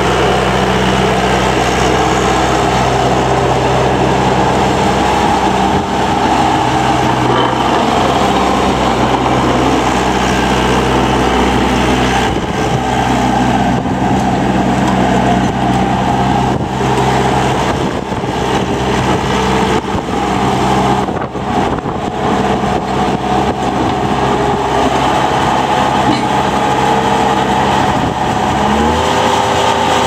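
Bobcat T300 tracked skid-steer loader's diesel engine running steadily as the machine drives and turns on gravel, its rubber tracks moving under it. The engine note changes about a second before the end.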